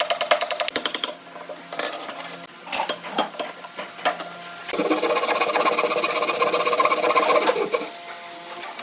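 Rapid clicking for about a second, scattered clicks, then a small electric power tool's motor running steadily for about three seconds before stopping.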